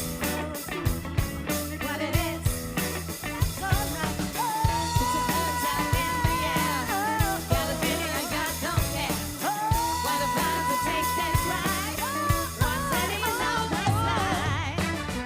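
Live funk and soul band playing over a steady drum beat, with a lead line holding two long notes in the middle.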